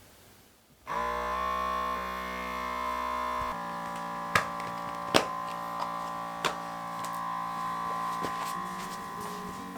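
Background music: a sustained synthesizer-like chord comes in suddenly about a second in and holds, with a few sharp taps in the middle.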